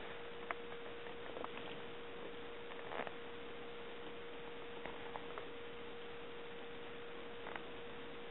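Quiet room tone: a steady hum at one pitch over a soft hiss, with a few faint clicks scattered through it.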